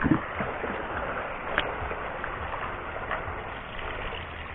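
Steady open-air hiss with a short knock at the start and a few faint clicks.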